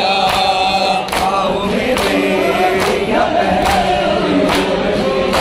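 Many men singing a noha, an Urdu mourning lament, together in unison, over chest-beating (matam) in which hands slap bare chests in time, about once a second.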